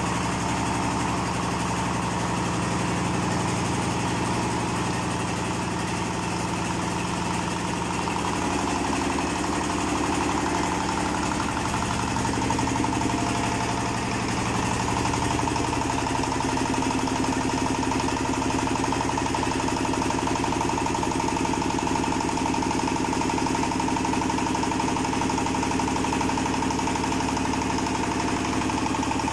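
Mustard oil expeller machine running steadily: a continuous mechanical drone with a layered hum. The pitch of the hum shifts slightly about halfway through.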